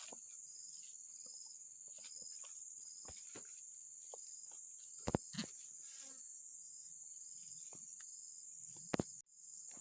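Insects chirring: a steady high drone with a softer chirp pulsing beneath it about twice a second. A few sharp clicks stand out about five seconds in and again near the end.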